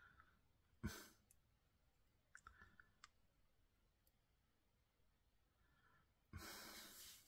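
Near silence: room tone with a faint click about a second in, a few tiny ticks a little later, and a soft breath-like hiss near the end.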